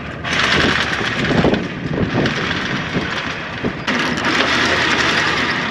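Anchor windlass running, hauling the anchor chain up over the bow roller with a steady mechanical noise and fine rattling ticks.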